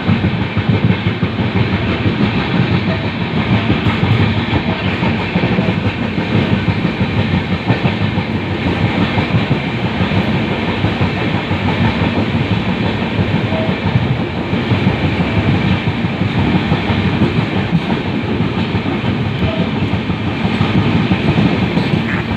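LHB passenger coach running along the rails: a steady, loud rumble of wheels on track.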